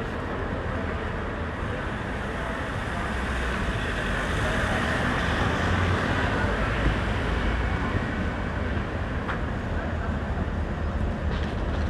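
City street traffic noise at a crossing, steady and rising to a peak about halfway through as a vehicle passes close by.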